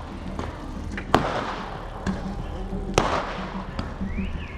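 Fireworks going off, with two sharp, echoing bangs about a second in and three seconds in and a few fainter pops between them.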